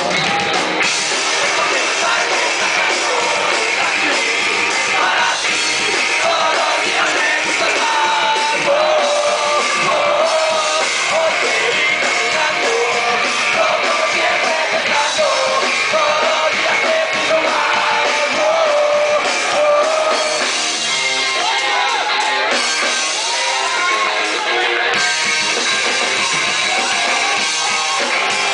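A live punk rock band plays loud and steady, with electric guitars, a drum kit and singing.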